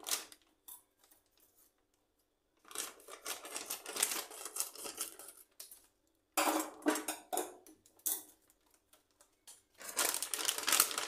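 Plastic meat-packet crinkling and tearing as it is handled and opened, in three bursts with quiet gaps between.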